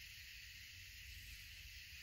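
Near silence: a faint, steady high hiss with a low rumble underneath, and no distinct events.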